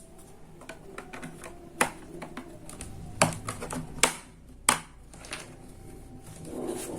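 Plastic bottom cover of an Asus X555BP laptop being pressed back into place, its clips snapping shut: light ticks and handling clicks, with four sharper snaps between about two and five seconds in.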